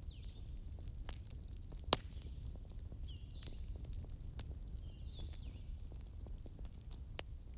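Wood bonfire crackling with many small pops over a low rumble of flames, with two louder sharp snaps, one about two seconds in and one near the end. Birds call in the background, with a quick repeated trill midway.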